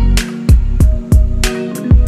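Background music with a steady beat of deep bass-drum thumps.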